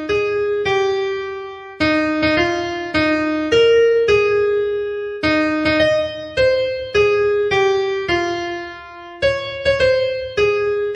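A solo piano melody played as background music, single struck notes that ring and fade, in short phrases.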